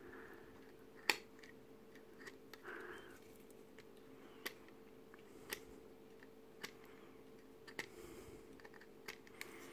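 Fine hobby blade scraping at a slot in a plastic model kit part to widen it: faint scrapes and about five sharp little clicks spaced a second or so apart.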